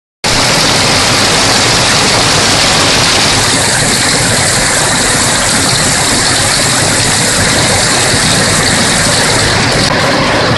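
Chicken feet peeling line machinery running: a loud, steady rushing noise with no clear beat, cutting out for a moment at the very start.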